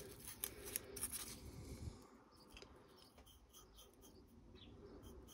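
Faint light scratches and ticks of a fine paintbrush working on tiny plastic rotor blades, mostly in the first couple of seconds, then near silence.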